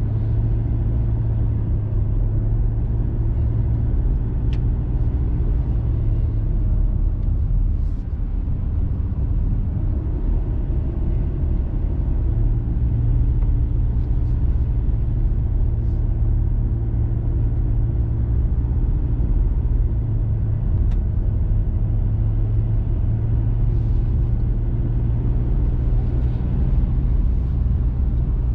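Steady engine drone and road noise heard from inside a moving diesel vehicle's cabin, with a few faint clicks.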